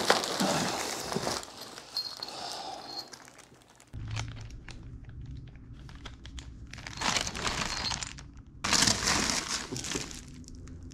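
Crumpled packing paper and bubble wrap rustling and crinkling as parts are lifted out of a cardboard box, in several irregular bursts with quieter gaps between.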